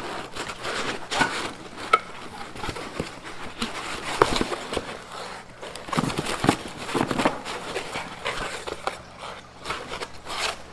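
Packaging being handled: a foam insert, plastic wrapping and a cardboard box rustling and scraping as parts are unpacked, with scattered sharp knocks and clicks.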